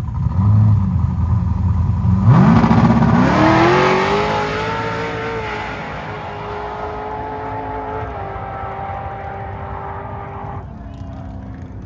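Drag-race car launching hard off the line about two seconds in after a short engine blip. Its engine pitch climbs fast, then holds and steps down slightly twice as it pulls away down the strip and fades.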